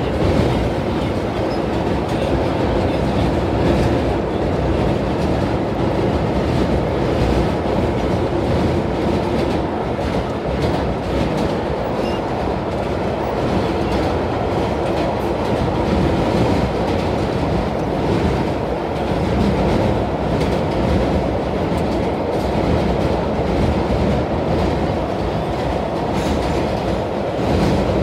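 Vintage IND R1-9 subway car running through a tunnel, heard from inside the car: a steady, loud noise of wheels and running gear with a faint, even hum beneath it.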